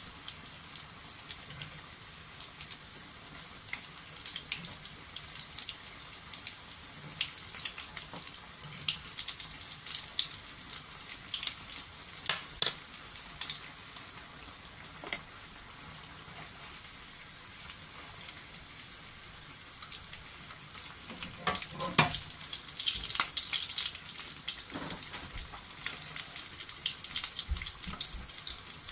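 Red-lentil tikka kabab patties shallow-frying in hot oil in a pan: a steady sizzle full of small crackles and pops, with a few louder clicks along the way.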